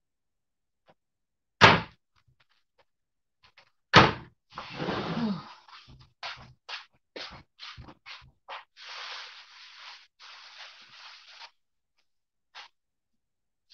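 Kitchen clatter: two loud thunks about two seconds apart, then a string of lighter knocks and spells of rustling.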